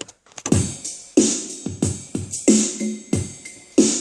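Electronic background music with a steady drum-machine beat, starting about half a second in.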